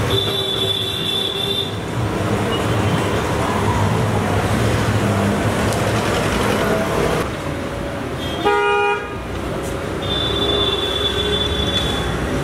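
Road traffic running steadily with vehicle horns honking. A horn sounds for about two seconds near the start, a short, loud blast comes about eight and a half seconds in, and another horn sounds for about two seconds near the end.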